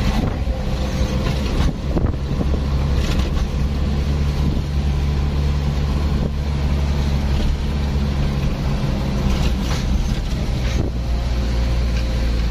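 A motor vehicle driving at a steady pace: a constant engine hum under road noise, with a few light knocks along the way.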